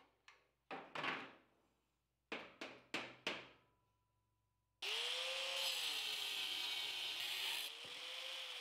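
Six short metallic clanks, then from about five seconds in an angle grinder with a wire wheel runs steadily against forged steel, its whine rising and falling as it is pressed to the work.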